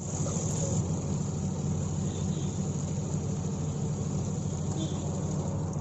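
A motor running steadily with a low, even drone while petrol is pumped through a nozzle into a motorcycle's fuel tank.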